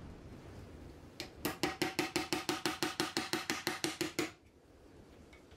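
A hammer driving the nails of a blue plastic nail-on electrical box into a wooden stud: a fast, even run of about twenty sharp, ringing blows, about six a second. The blows start about a second in and stop about four seconds in.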